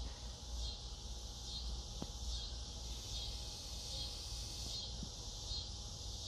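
Insects chirping in a high, even pulse, about two chirps a second, over a low outdoor rumble. Two faint snips from grooming scissors, about two and five seconds in.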